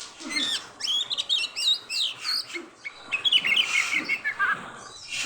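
Oriental magpie-robin (kacer) in full breeding condition singing a fast run of varied whistled notes that slide up and down in pitch, fading out about four and a half seconds in.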